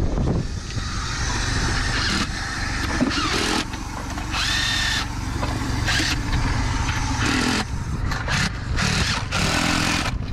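An engine running steadily under the hiss of water spraying from a leaking water main; the hiss swells and drops every second or so.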